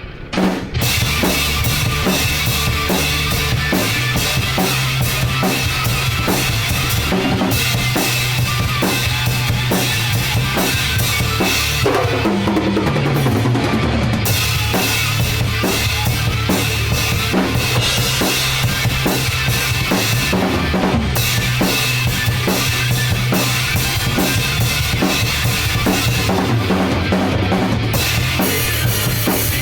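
Hard rock music driven by a loud drum kit playing a steady beat on bass drum and snare. About twelve seconds in, a sound slides down in pitch over two seconds.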